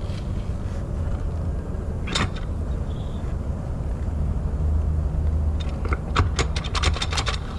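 Car engine running with a steady low hum, a single sharp click about two seconds in, and a quick, irregular run of sharp clicks near the end.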